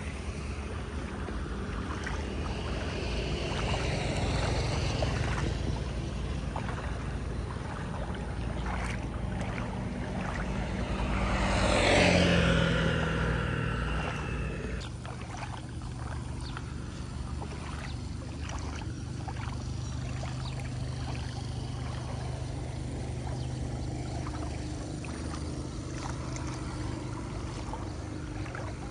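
A motor vehicle passes by, swelling to its loudest about twelve seconds in, its pitch falling as it goes away, over a steady low rumble.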